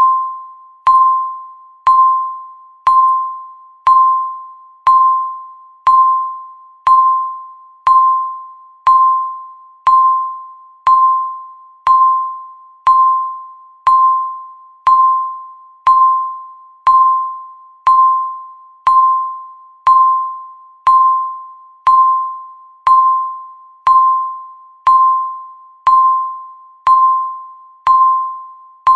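Countdown-timer beep sounding once every second, a short bell-like tone at one steady pitch that starts sharply and fades quickly before the next.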